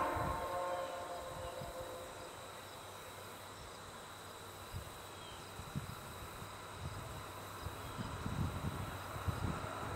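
Faint outdoor ambience of insects chirring, with irregular low wind thumps on the microphone. A distant train horn chord fades out over the first two seconds.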